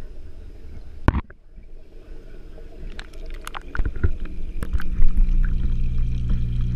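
GoPro Hero 3 Black in its waterproof housing going under the aquarium water: a sharp knock about a second in, after which the sound turns muffled. Scattered clicks and taps on the housing follow, and from about four seconds in a steady low hum sets in and grows louder.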